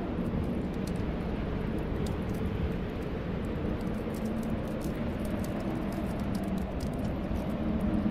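Snowstorm wind blowing steadily as a low rush, with faint wavering whistling tones in it, and a fireplace crackling faintly with small scattered ticks.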